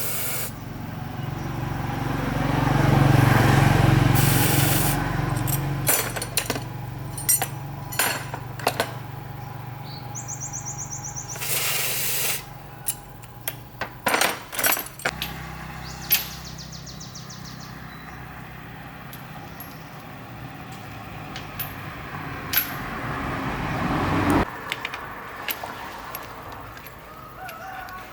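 A small engine running steadily, louder for a couple of seconds near the start, with scattered sharp metal clanks and knocks from tools. The engine stops abruptly near the end.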